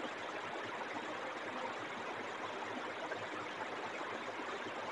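Steady background hiss of room noise, even and unbroken, with no speech.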